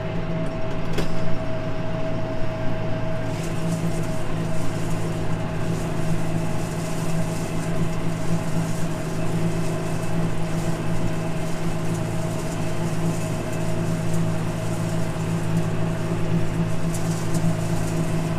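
Tractor engine running steadily at constant speed while pulling a hay rake across the field.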